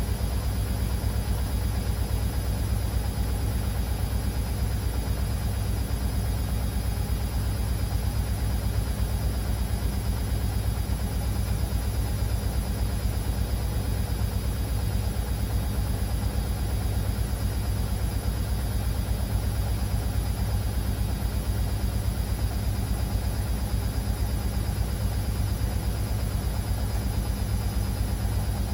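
Beko WA 1050 front-loading washing machine running steadily, a continuous low hum with a hiss above it and no pauses.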